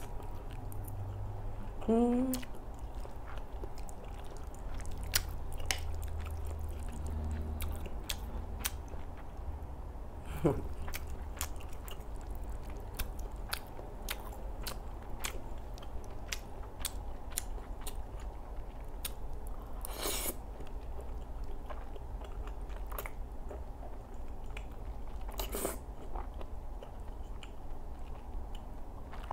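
Close-up chewing and lip-smacking of creamy spaghetti, with many small wet mouth clicks throughout and a few louder slurps of noodles in the second half.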